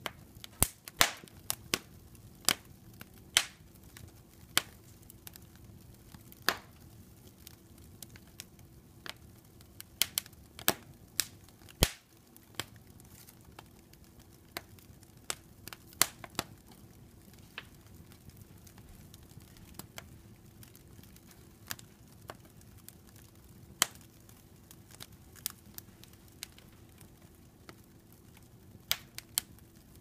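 Wood fire burning in a fireplace, the logs crackling with irregular sharp pops and snaps, some coming in quick clusters, over a soft steady background.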